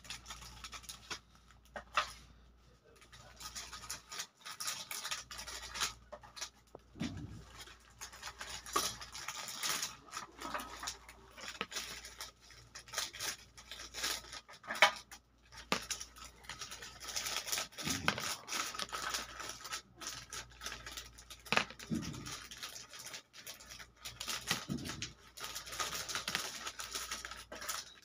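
Handling noise: irregular light clicks and scratchy rustles as gold bangles are picked up and moved about on sheets of paper, with a few soft low bumps.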